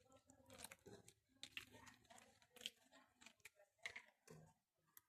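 Faint, irregular small clicks and crackles of slime being handled and mixed.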